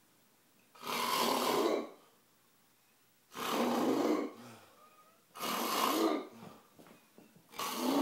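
A person snoring loudly: four snores, each about a second long, coming roughly every two seconds.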